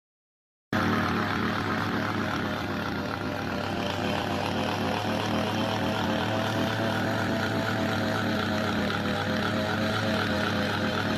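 A steady engine drone holding one pitch, starting after a split second of dead silence.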